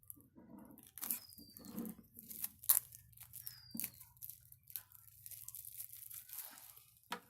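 Plastic shrink-wrap being torn and peeled off a phone's retail box, crinkling and crackling in irregular spurts with one sharper crack near the middle.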